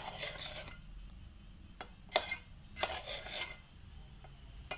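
Metal ladle scraping against the side and bottom of a metal pressure cooker as freshly cooked rice is stirred and fluffed, in several short scrapes with a sharp clink near the end.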